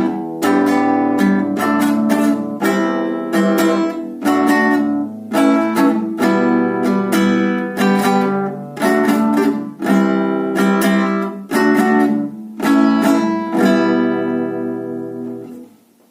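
Acoustic guitar strummed in a steady rhythm, open chords ringing between strokes, then fading out near the end.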